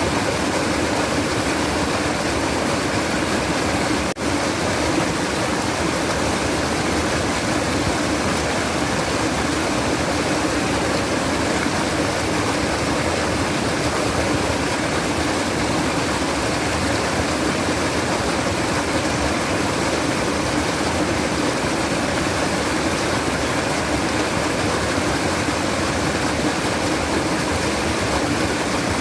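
Steady rushing, babbling water of a stream, an even wash of sound with no change, broken once by a brief click and momentary drop about four seconds in.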